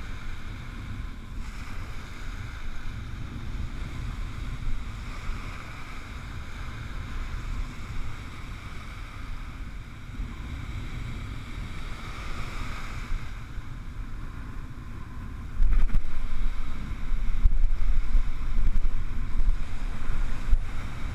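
Surf breaking and washing ashore, with strong wind rumbling on the microphone. The low wind rumble jumps louder about three-quarters of the way through.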